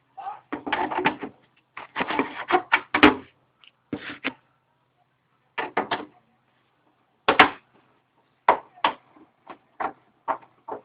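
Irregular clattering and knocking of hard parts being handled in quick clusters, from a television's casing and parts during disassembly, with a faint steady low hum underneath.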